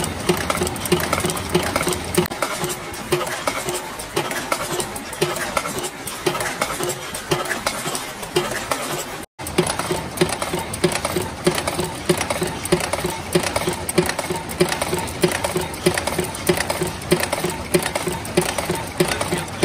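Screw-making machine cutting steel wire into screw blanks, running with a fast, even mechanical clatter of repeated strokes. The sound drops out for an instant about nine seconds in.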